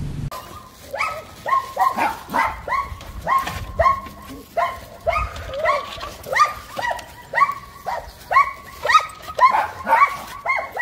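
A dog barking over and over, about two short barks a second without a break.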